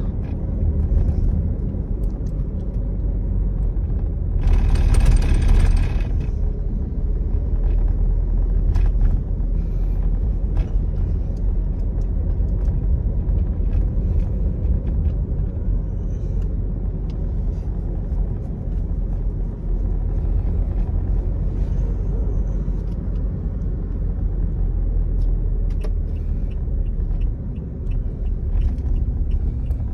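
Steady low engine and road rumble inside a Toyota Innova's cabin as it drives along in third gear. About four seconds in there is a louder hiss with a high tone that lasts under two seconds.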